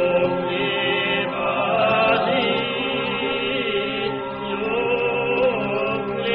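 Macedonian folk singing: voices holding a steady drone under a wavering, sliding melody.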